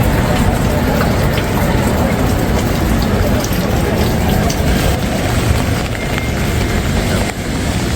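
Steady wet-street ambience in the rain: a continuous low rumble under an even hiss of rain, with a few light ticks.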